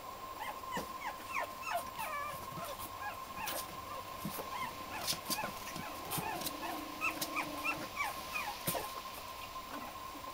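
Five-week-old Black and Tan Griffon puppies whimpering and yipping in many short, high-pitched squeaks that fall in pitch, with scattered sharp clicks among them and a steady high tone underneath.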